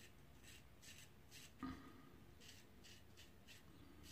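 Double-edge safety razor, brass with a gunmetal coating, scraping through lather and stubble in short, faint strokes, about three a second in short runs. A brief soft knock comes about one and a half seconds in.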